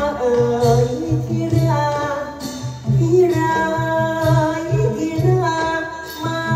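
Likay stage song: a held, ornamented vocal melody that glides between notes, over instrumental accompaniment with a steady low beat.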